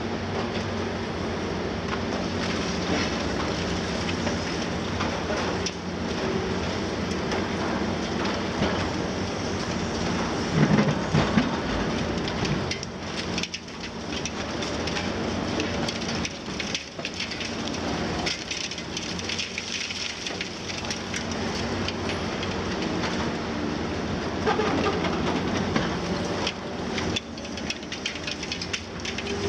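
Diesel engines of demolition excavators running steadily, including a Liebherr 954 long-front high-reach machine, under continuous crunching and crackling of concrete and masonry being broken and dropping as rubble. A louder crash of falling debris comes about eleven seconds in.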